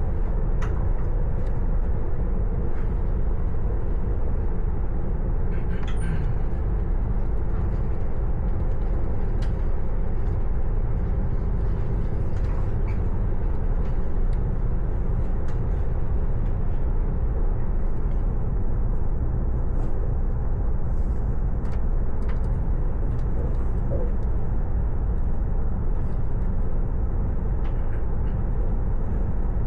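Train running at steady speed: a constant low rumble with a few faint clicks and knocks.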